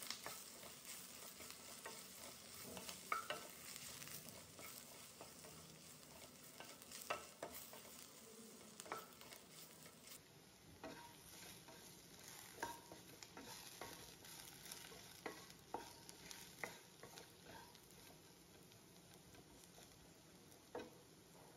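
Faint sizzle of ivy gourd frying in a nonstick kadai as a wooden spatula stirs and tosses it, with scattered knocks and scrapes of the spatula against the pan.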